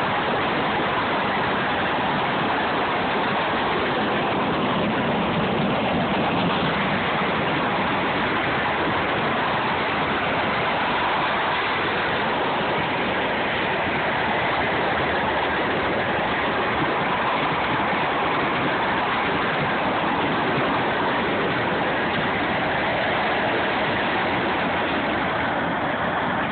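Norfolk Southern freight train's cars rolling past, a steady noise of steel wheels running on the rails.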